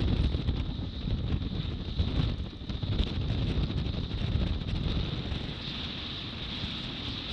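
A small motorboat with an outboard motor running through choppy water, wind buffeting the microphone and spray rushing past the hull, with a few knocks as the hull meets waves.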